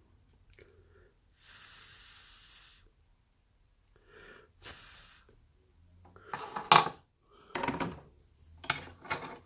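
Soldering an XT60 connector's tab: two soft hisses, then from about six seconds in a run of sharp clicks and clatters as the soldering iron and metal pliers are handled and set down on the bench, the loudest just before seven seconds.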